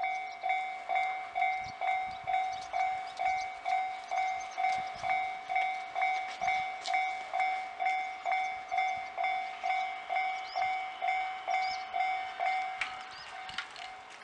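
Japanese railway level-crossing warning bell ringing its 'kan-kan' alarm, about two strikes a second, each fading quickly: the signal that a train is approaching or passing. It stops about 13 seconds in, with a click, leaving a fading ring.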